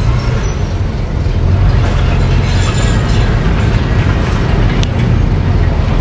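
Diesel engines of a small crawler bulldozer and dump trucks running steadily: a low, continuous engine rumble.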